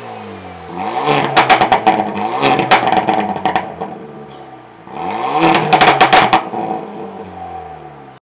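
Hyundai Veloster N's turbocharged 2.0-litre four-cylinder coasting down from a dyno pull with falling revs, breaking into two bursts of loud exhaust pops and crackles, the first about a second in and the second about five seconds in. The crackling is the sign of a custom ECU tune set to give big, long pops on the overrun even when the engine is hot, with the stock downpipe.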